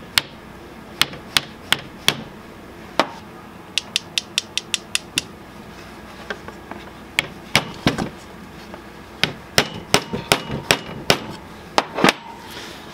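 Ball-peen hammer tapping the end of a wooden stick held against a Yamaha Warrior 350 quad's cylinder head, driving a part into place. The taps are sharp and irregular, with a quick run of about ten light taps a little after a third of the way in, and more strikes later on.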